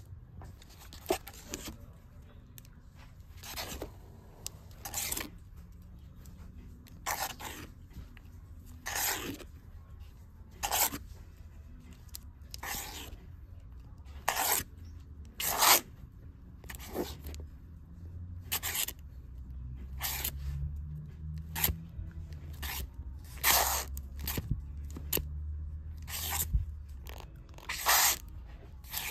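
Bagged comic books being flipped through one by one in a shop bin: a short rustling scrape of plastic comic sleeves and backing boards about every second and a half.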